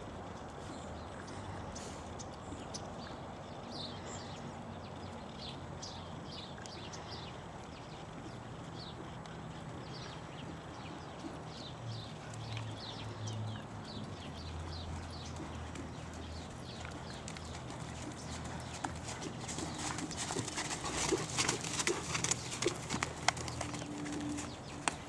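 Horse's hoofbeats on a sand arena as a dressage horse trots under saddle: soft, muffled footfalls that turn into louder, sharper crunching hoof strikes near the end as the horse passes close. Short high chirps sound in the background through the first part.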